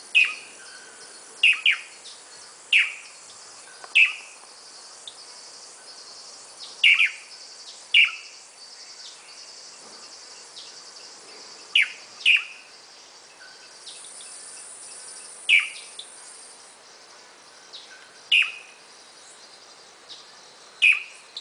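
Swallow-tailed manakin (tangará) giving short, sharp, downward-slurred call notes, singly or in quick pairs, every second to few seconds. A faint steady insect hiss sits high in the background.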